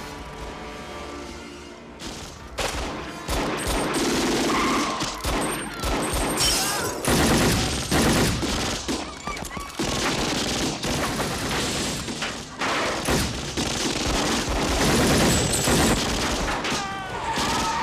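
Movie gunfight: rapid, overlapping shots from an assault rifle and pistols, in bursts, starting about two seconds in after a quieter opening.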